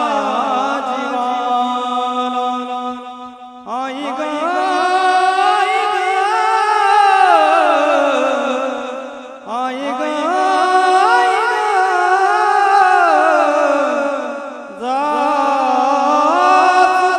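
Man singing Mangalashtak, the Marathi wedding blessing verses, in long drawn-out phrases whose held notes bend and waver, with short breaks for breath about four, nine and fifteen seconds in.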